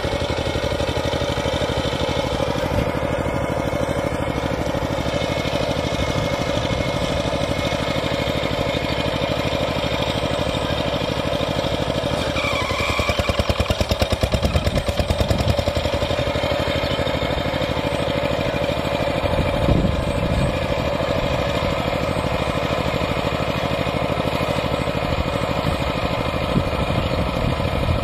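Two-wheel hand tractor's single-cylinder diesel engine running steadily, with a stretch of louder, pulsing engine beat about halfway through.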